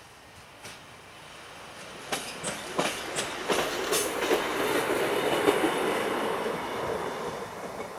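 Diesel railbus running past off to the side, its wheels clicking sharply over rail joints and points several times, the running noise swelling and then slowly fading as it moves away.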